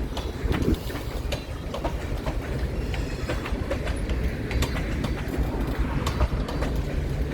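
Empty freight train cars rolling past: a steady low rumble of steel wheels on rail, with irregular clicks and clacks as the wheels pass over the rail joints.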